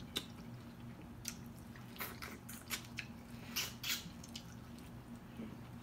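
Close mouth sounds of eating corn on the cob dipped in sauce: a few short, wet clicks and smacks as the last kernels are bitten and sucked off the cob, spaced irregularly.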